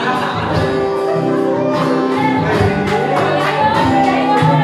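Live acoustic guitar strumming chords, with singing over it.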